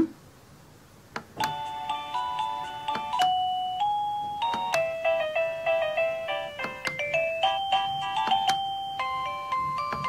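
Tecknet WA638 plug-in wireless doorbell receiver playing one of its electronic chime melodies as its melody button is pressed to choose a tune. A click about a second in, then a tune of stepped beeping notes that runs on.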